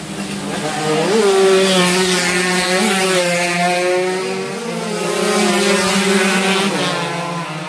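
Two-stroke 115cc underbone race motorcycles at high revs, passing on the track. Their buzzing engine note swells twice: about a second and a half in, and again around five to six seconds.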